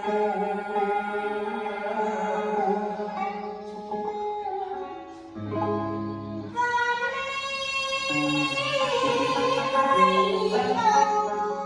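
Instrumental music between sung verses: a melody line with a plucked string instrument such as guitar, over sustained bass notes.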